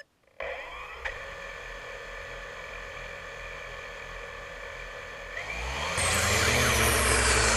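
Blade 350QX2 quadcopter's electric motors and propellers spinning at idle with a steady whine. About six seconds in they throttle up, much louder, with sliding pitches and a rush of air, as the quad lifts off.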